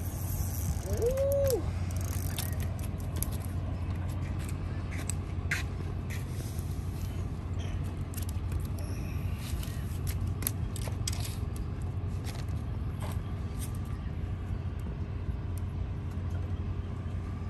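Spinning fishing reel being worked as a fish is brought in: irregular small clicks and gear sounds over a steady low hum.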